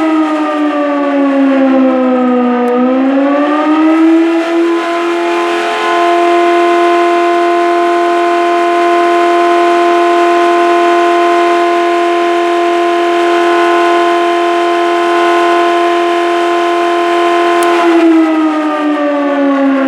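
Volunteer fire station siren sounding. Its pitch dips and climbs back over the first few seconds, holds one steady tone for about thirteen seconds, then starts to fall near the end.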